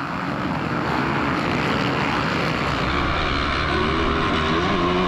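A pack of motocross bikes racing at full throttle, their engines blending into one dense drone; from about three and a half seconds in, one bike's steady engine note stands out above the rest.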